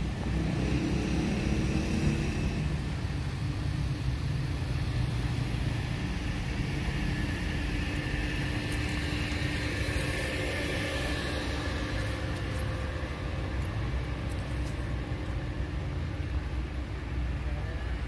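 Steady street traffic: the continuous low rumble of cars driving by.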